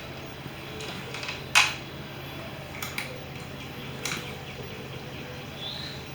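A single sharp click about one and a half seconds in and a few fainter ticks, over a low steady hum.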